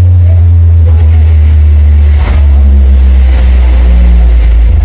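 Huge 'sound horeg' carnival sound system blasting very loud, distorted deep bass that runs steadily through, with faint tones stepping above it. A sharp knock comes about two seconds in.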